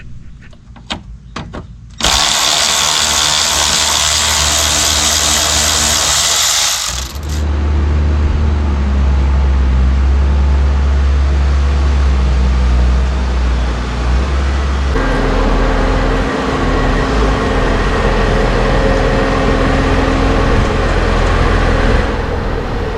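Porsche Panamera 4S twin-turbo engine starting and then idling. A few light clicks come first, then about five seconds of loud rushing noise as it fires, then a steady deep idle that shifts to a slightly different steady hum partway through.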